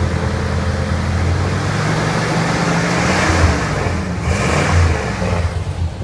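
Pickup truck's exhaust through a new Walker SoundFit stock-replacement aluminized-steel muffler, the engine blipped up from idle and falling back a couple of times. The rev peaks come about three and a half and five seconds in, with a slightly louder-than-stock exhaust note.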